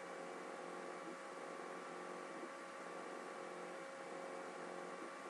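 Steady hiss with a faint electrical hum: the background noise of the recording line.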